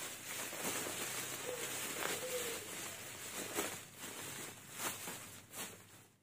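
Plastic bubble wrap rustling and crinkling as it is pulled off a packed part by hand, with a few sharper crackles. It dies away near the end.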